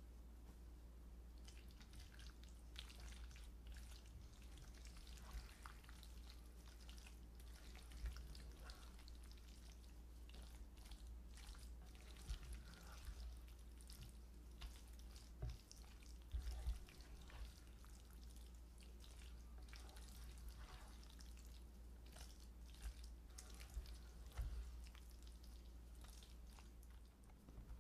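Spatula stirring a wet quiche filling of sliced onions, bacon, cream and egg yolk in a bowl: faint, irregular wet squishing and clicking, with a few soft thumps.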